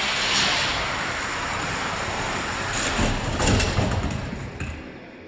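Several Hot Wheels die-cast cars rolling down a multi-lane plastic drag-strip track, a steady rolling rattle that grows louder. About three to four seconds in it peaks in a clatter of knocks as the cars reach the bottom of the track, then fades.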